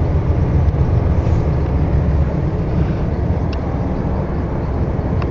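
Car road noise heard from inside the cabin while driving: a steady low rumble of tyres and engine, with a couple of faint ticks.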